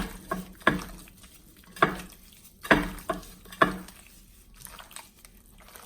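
Kitchenware knocking against a dish: about six sharp clicks and knocks in the first four seconds, then softer handling noise.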